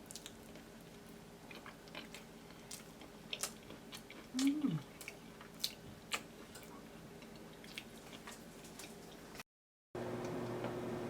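Scattered light clicks and taps of kitchen handling, with a short falling hum-like sound about four and a half seconds in. After a brief drop-out near the end, a steady hum.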